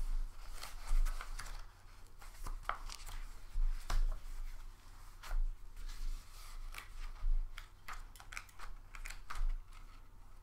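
Sheets of paper being handled and shuffled: irregular rustles and light clicks, with soft low bumps every second or two.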